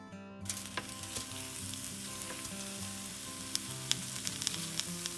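Jalapeño chiles, onion quarters and garlic cloves sizzling as they roast on aluminium foil on a stovetop, with scattered crackles and pops. The sizzling starts abruptly about half a second in, and the vegetables are charred and close to done.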